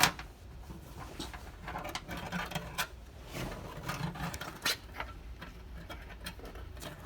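Scattered light clicks and scraping of a thin steel wind-up hose-clamp band being handled and fed through its clamp, with a sharper click about a second in and again near three and five seconds.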